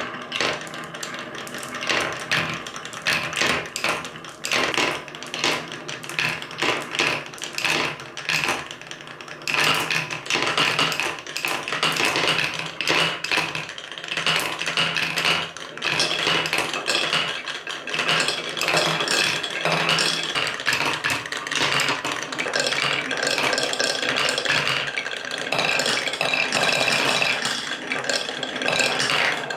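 Many glass marbles rolling through wooden marble-run tracks: a continuous rolling rumble with frequent clacks as they knock against each other and the wood.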